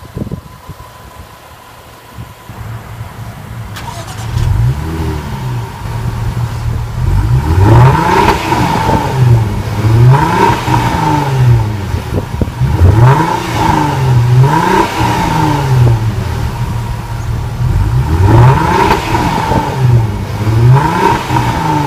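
Supercharged 3.0-litre V6 of a 2014 Jaguar XF blipped repeatedly from idle through its twin exhaust. The pitch rises and falls with each rev, one every couple of seconds. It is low for the first few seconds and builds from about four seconds in.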